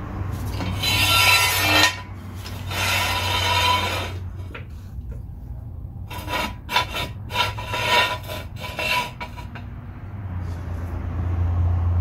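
Hydraulic floor jack being pumped to lift a car: two long strokes of the handle, then a run of shorter knocks and scrapes about six seconds in as a jack stand is set under the car, over a steady low hum.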